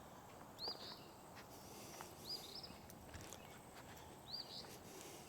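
A bird calling faintly: a short, high, arched note repeated three times, about two seconds apart, over quiet outdoor background.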